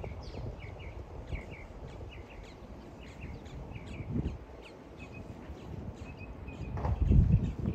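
Small birds chirping in quick, repeated short notes over the dull thuds of a horse's hooves on sand footing, with a louder low rush near the end.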